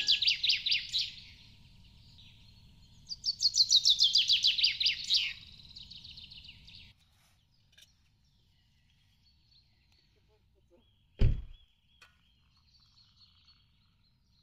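A songbird singing two loud phrases, each a rapid run of high notes falling in pitch, about three seconds apart. Later, faint distant birdsong and one sharp knock about eleven seconds in.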